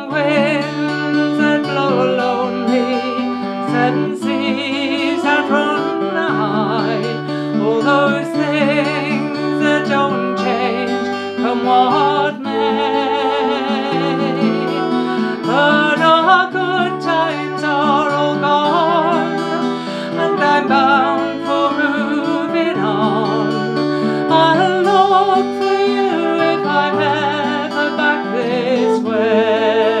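Folk song in D played on a strummed acoustic guitar, with a concert flute playing a wavering melody line and a woman singing.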